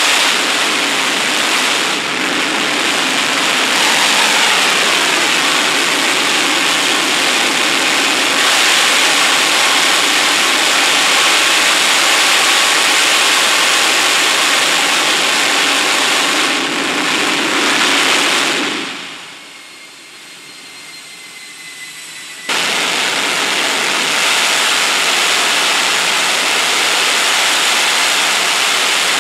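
Jet engine running in afterburner: a steady, loud roar. A little over halfway through, the roar falls away over about a second to a much quieter level, with a faint high whistle falling in pitch. About three and a half seconds later the full roar cuts back in suddenly.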